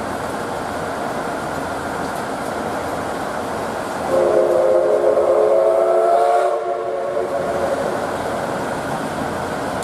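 Steam whistle of the D51 steam locomotive D51 498, one long blast of about two and a half seconds starting about four seconds in, several tones sounding together and rising slightly in pitch just before it stops.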